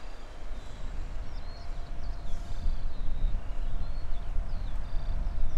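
Small birds chirping repeatedly in short, swooping calls over a continuous low, fluctuating rumble.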